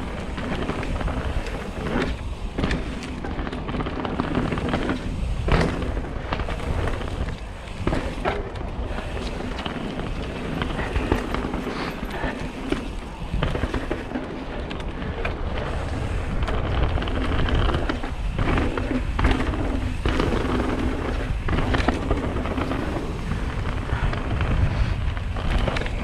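Mountain bike, an Intense Recluse, descending a rough dirt and gravel trail: tyres rumbling and crunching over the ground with frequent clatters as the bike rattles over bumps and stones, and wind buffeting the helmet camera's microphone.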